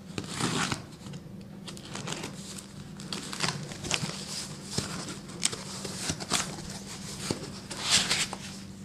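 Packing tape on a cardboard box being slit with a steel rod and the flaps pulled open: a run of irregular scraping, tearing and rustling noises, the loudest near the end as the box opens onto its foam packing.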